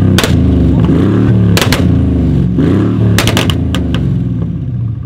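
Tuned Mercedes-Benz E500 (W212) twin-turbo V8 revved repeatedly while standing still, its exhaust crackling and banging in sharp clusters of pops as the revs drop, from a 604 hp EPC Tuning stage 3 map with pops and bangs.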